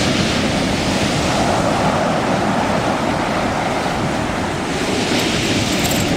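Sea surf washing steadily onto the shore, with wind buffeting the microphone.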